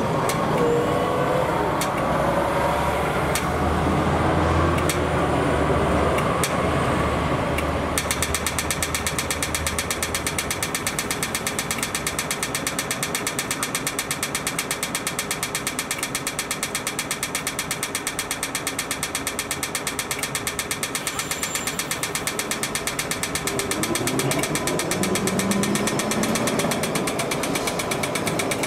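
Low rumble of passing traffic. About eight seconds in, a fast, even mechanical ticking starts and keeps going.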